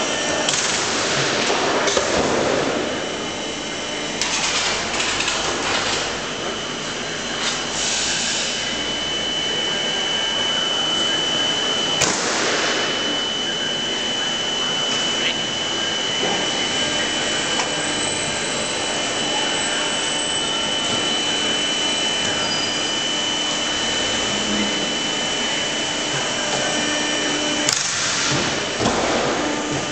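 Corrugated iron rollforming line with its rotating guillotine running, with a steady high whine from about a quarter of the way in. A few short sharp clunks, the last near the end, as the guillotine cuts the sheet at an angle.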